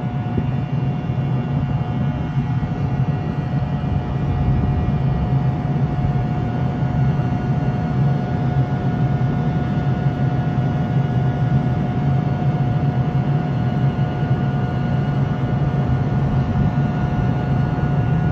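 NJ Transit ALP-46 electric locomotive standing at idle: a steady low hum with a constant whine above it.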